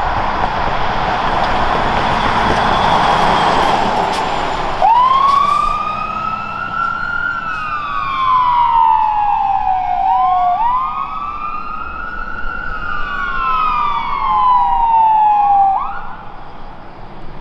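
Fire apparatus dual-tone electronic sirens wailing: two siren tones slightly out of step, each rising and then falling slowly over about five seconds, twice, with a third rise starting near the end. Before the wail starts, about five seconds in, there is a loud steady rushing roar.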